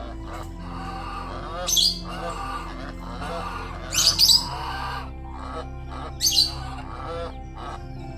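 Geese calling in short, harsh squawks about every two seconds over a background music track with held chords.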